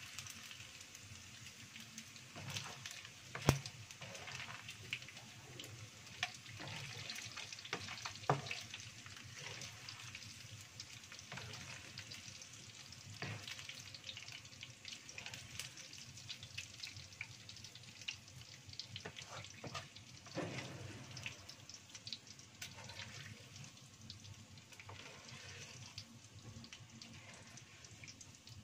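Small dried anchovies frying in hot oil in a wok, a steady sizzle, with the wooden spatula and metal strainer ladle clicking and knocking against the pan now and then as the nearly golden fish are stirred and lifted out to drain. The sharpest knocks come about three and a half and eight seconds in.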